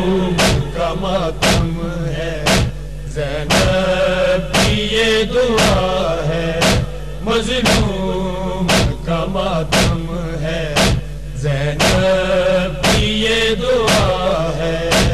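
A male voice chanting a noha (Shia lament) with sharp rhythmic slaps of matam, hands striking the chest, about once a second.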